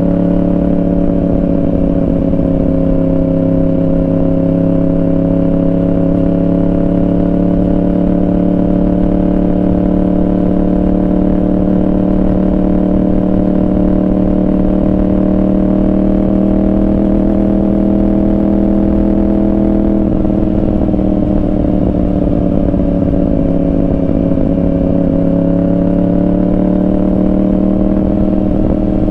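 Yamaha R1's inline-four engine running through a Yoshimura exhaust while cruising at steady revs. The pitch eases down slightly about twenty seconds in and picks back up near the end.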